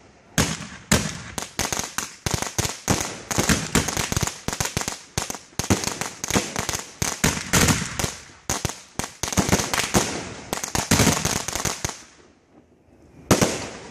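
Aerial fireworks bursting overhead in a rapid barrage of sharp bangs and crackles, several a second. The barrage breaks off about twelve seconds in, and one more loud bang follows shortly after.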